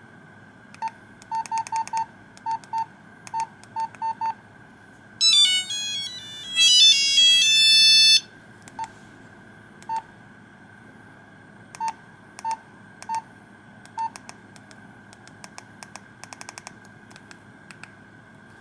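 Nokia 2100 monophonic phone beeping as its keys are pressed: a quick run of short single-pitch key beeps, then a fast three-second burst of square-wave melody notes about five seconds in, then a few more spaced key beeps and some faint clicking near the end.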